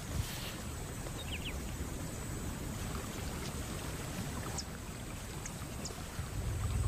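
Shallow water sloshing and splashing steadily as a lion moves through it, with a few faint short chirps.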